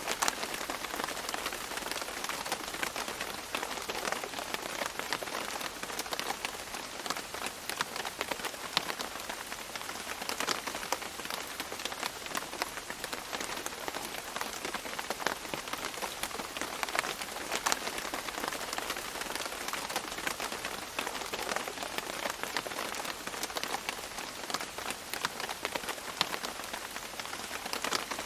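Steady rain falling on leaves, a dense patter of drops.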